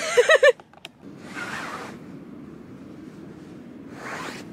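A short laugh, then two soft rustling swishes of tent fabric and bedding as a person shifts lying down, over a steady low rumble.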